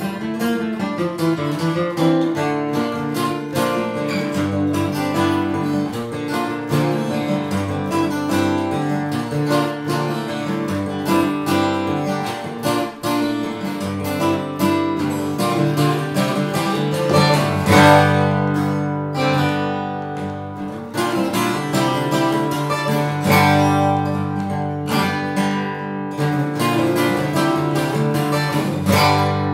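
Two acoustic guitars playing together, a duet of picked notes and strums.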